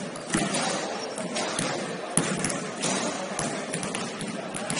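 Basketball game on a gym court: irregular thuds and sharp knocks of a ball bouncing and players on the floor, about two a second, over a steady background din.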